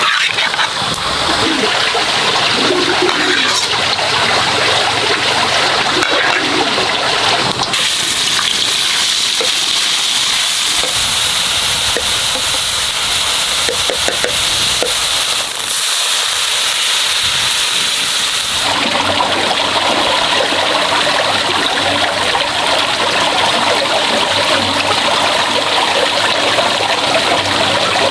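Water running and splashing as a steady noise, changing abruptly in character about 8 seconds in and again about 19 seconds in.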